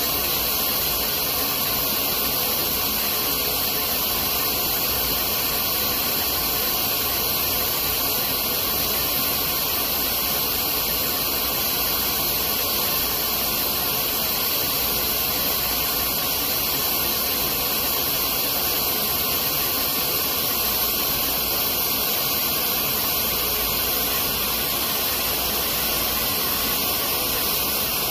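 Fiber laser engraving machine running as it engraves a polymer handgun grip: a steady, even hiss with a high, thin edge that does not change.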